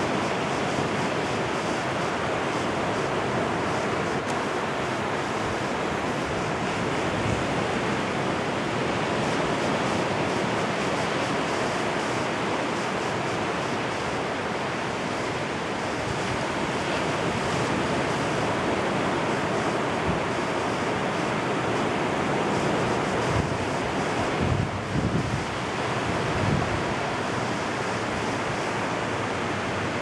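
Small surf breaking and washing up a sandy beach, a continuous steady wash of waves. Wind buffets the microphone a few times about three-quarters of the way through.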